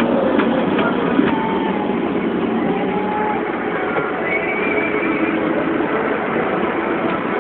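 Lamborghini R3 Evo 100 tractor's diesel engine running steadily under load, heard from inside the cab while it pulls a cultivator across the field. A few faint whines come and go over the engine noise.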